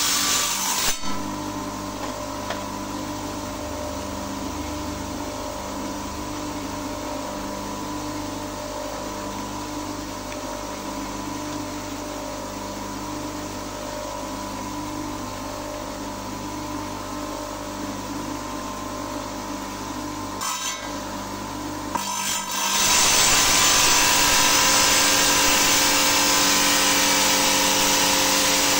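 Electric stone-cutting saw running with a steady motor hum; about 22 seconds in, a much louder, harsher rushing noise takes over and holds steady.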